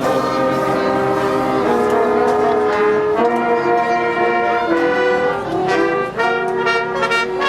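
Brass orchestra of trumpets and trombones playing loud, held chords that move to new harmonies every second or two, with a run of short, punched notes near the end.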